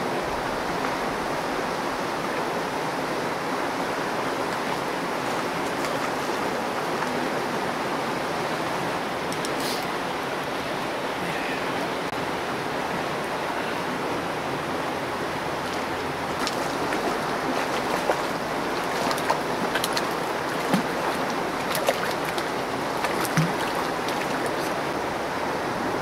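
Steady rush of a fast mountain river running over rocks and riffles, with a few small sharp clicks close by in the second half.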